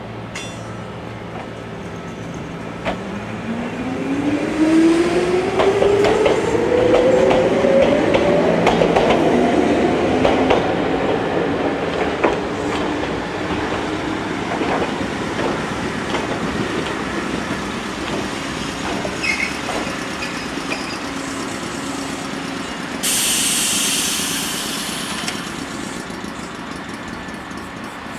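Ichibata Electric Railway 3000 series electric train pulling away: its traction motor whine rises steadily in pitch as it accelerates, with wheels clacking over rail joints. A short hiss comes near the end.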